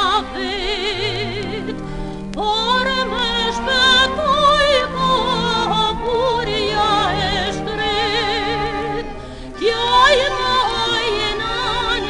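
Soprano singing an Albanian song in operatic style, with wide vibrato, over instrumental accompaniment. New phrases begin with an upward slide into the note, about two and a half seconds in and again near ten seconds.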